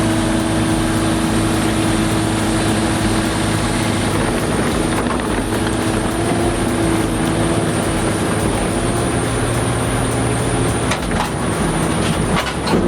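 Heavy construction machine's diesel engine running steadily under load, with a few metallic clanks near the end.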